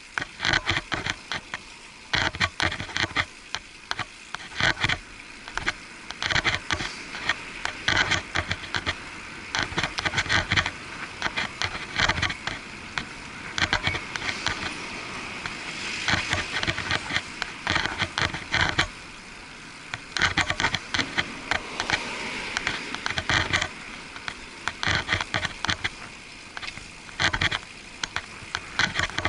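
Bicycle ride recorded by an action camera sealed in a waterproof housing, so the sound is muffled. Frequent irregular knocks and rattles come from the ride over the road, over a steady hiss of street and traffic noise.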